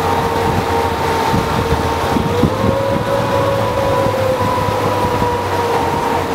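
Shuttle boat's motor running steadily under way, heard from aboard in the open-sided cabin, with a whine that rises a little about two and a half seconds in and then settles back.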